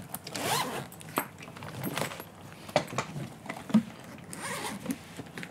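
The zipper of a BG Berlin Enduro hard-shell spinner carry-on suitcase being run open, with a few sharp clicks and knocks as the shell lid is swung open.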